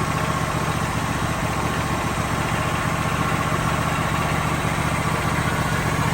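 Wood-Mizer LT40 sawmill engine running steadily at idle, with a steady high whine over it.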